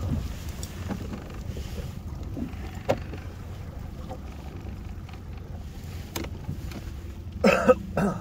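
Low, steady rumble of a small fishing boat's motor idling, with wind buffeting the microphone and a few faint clicks. Near the end there is a short, loud burst.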